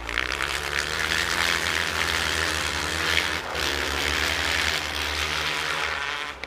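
Distant engines of 450 cc and 250 cc off-road racing machines running flat out across the ice, under a steady rushing noise, with a brief dip about halfway through.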